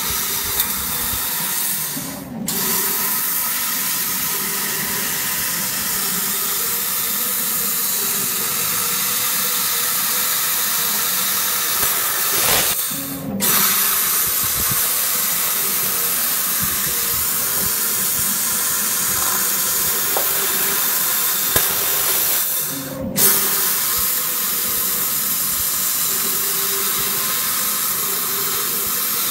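LXJ1325 laser cutting machine cutting a metal tube held in its rotary chuck, with a steady, loud hiss. The hiss breaks off briefly three times, about ten seconds apart, and starts again each time.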